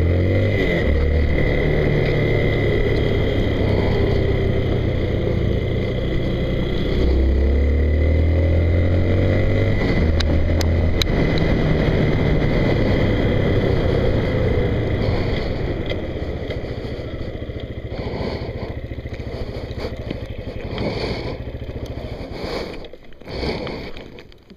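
Honda CRF230L's single-cylinder four-stroke engine running under way, its note changing in steps over the first half, with wind rush. It then eases off and grows quieter as the bike slows, and a few knocks sound close by near the end.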